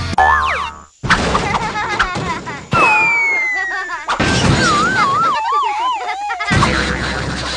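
Children's cartoon soundtrack: music and sound effects in short, abruptly cut segments, with a long falling glide tone about three seconds in and a wobbling tone that drifts downward after it.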